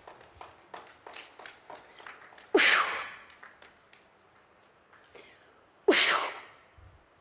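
A woman shaman's forceful ritual coughs, done to drive out evil spirits: two harsh, sudden blasts of breath about three seconds apart, each dropping in pitch and fading out over about a second.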